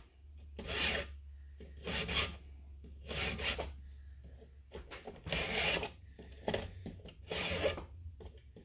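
Round chainsaw file rasping across the cutters of a Stihl saw chain clamped in a vise, in even sharpening strokes about once a second.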